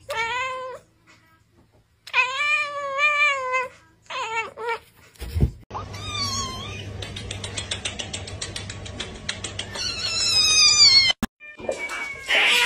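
A cat meowing: three long meows that rise and fall in pitch, then a thump and a stretch of higher, quicker cries with a fast pulsing run.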